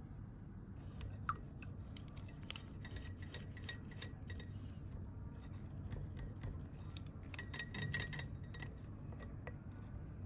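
Faint, irregular light clicks and clinks of small hard objects being handled, coming in two clusters with the loudest near the end, over a low steady hum.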